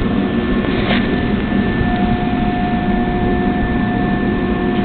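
Steady machinery noise: a continuous rumble with several constant hums, a higher hum setting in about two seconds in, and a brief hiss about a second in.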